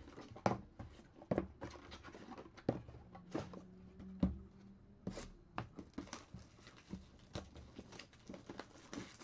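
Cardboard trading-card boxes being picked up, shuffled and set down on a table: irregular light knocks and taps, a few each second.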